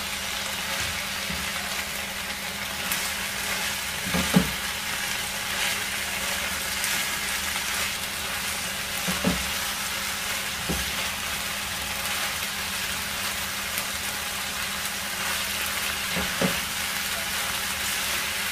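Chopped vegetables and chicken sizzling in a frying pan over full flame while being stirred with a spatula: a steady frying hiss, with a few short knocks of the spatula against the pan, the loudest about four seconds in.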